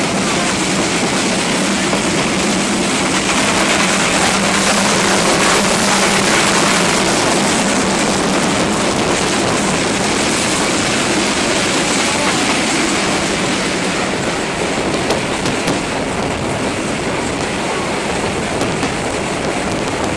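Steam-hauled train running, heard from an open window alongside the train: a steady noise of wheels on the rails mixed with wind on the microphone.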